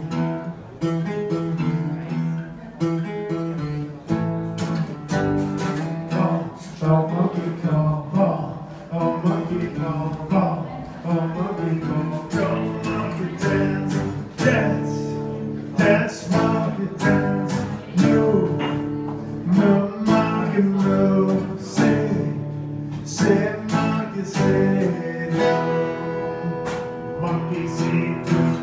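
Acoustic guitar strummed in a steady rhythm, chords ringing with a regular strum stroke, played live.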